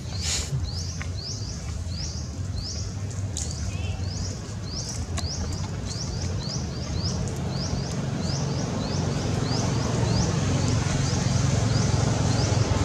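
A small bird repeating a short, high chirp about twice a second, evenly and without a break, over a steady low rumble.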